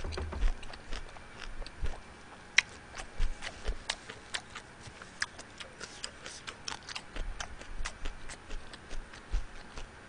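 Close-miked chewing of a mouthful of spicy steamed seafood: irregular wet clicks and small crunches from the mouth, several a second.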